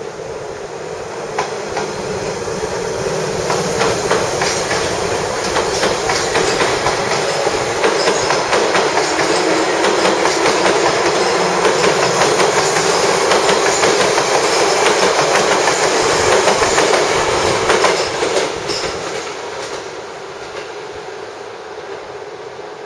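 Hankyu electric commuter train running past the platform, its wheels clacking over rail joints and points. The sound builds over the first few seconds, holds loud, and falls away about eighteen seconds in.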